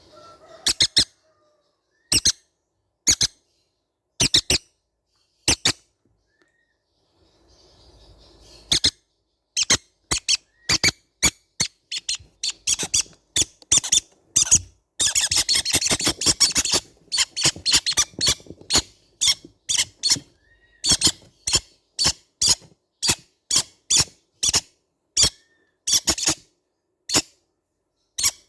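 Baby green-cheeked conures giving short, sharp, squeaky calls, a few spaced calls at first, then after a brief pause a fast run of repeated calls that bunches densely for a couple of seconds midway and goes on at about two calls a second.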